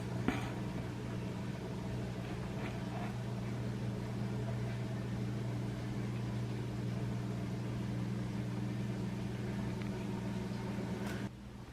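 1985 Casablanca Zephyr ceiling fan running with a steady low motor hum. There is a short click just after the start, and the hum cuts off suddenly near the end.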